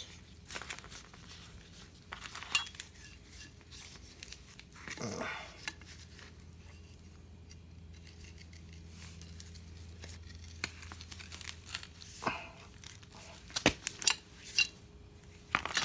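Sporadic light metallic clinks and knocks as a car's power steering pump and its loose fittings are handled and turned over, with a short rustle about five seconds in and a cluster of clinks near the end.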